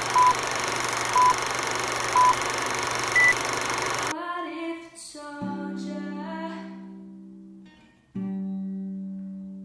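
Film countdown leader sound effect: a steady hiss with three short beeps about a second apart, then a fourth beep higher in pitch. It cuts off suddenly about four seconds in, and soft music with sustained notes takes over.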